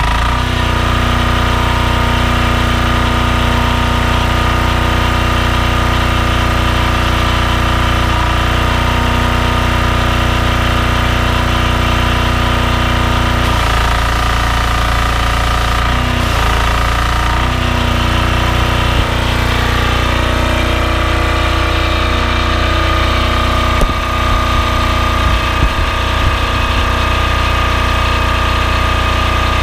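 Loncin 460 cc single-cylinder diesel engine on a belt-driven pressure washer running steadily just after a key start. Its note changes briefly a few times around the middle.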